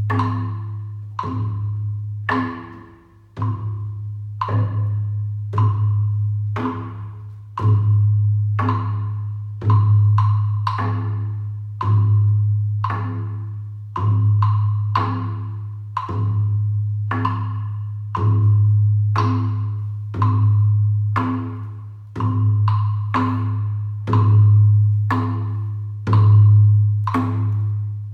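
Singing bowls struck with a mallet in a steady rhythm, about one strike a second, each ringing out and fading, over a deep sustained hum that swells every couple of seconds.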